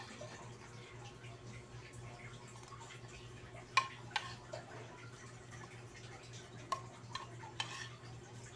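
A metal spoon clicking and scraping against a plastic bowl while eating, about six light clicks spread through the middle and later part, over a steady low hum.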